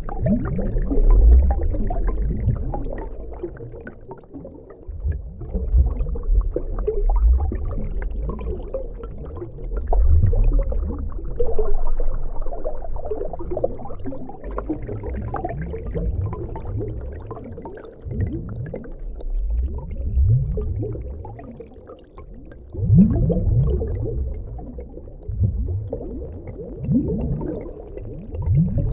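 Water in a swimming pool heard through a submerged microphone: a muffled, uneven low rumble of moving water that swells and fades. A few short rising warbles come near the end.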